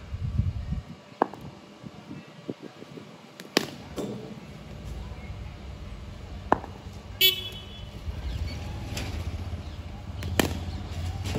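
Sharp knocks of a leather cricket ball on the bat and the concrete pitch in a practice net, four of them a few seconds apart, with a short horn toot about seven seconds in.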